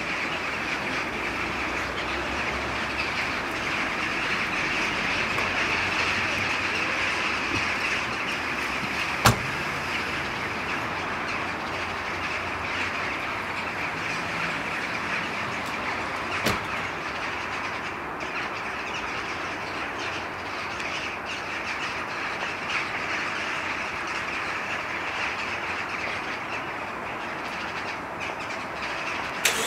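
A large flock of jackdaws calling all at once, their calls blending into a dense, continuous din over a steady low rumble. Two sharp clicks cut through, about nine and sixteen seconds in.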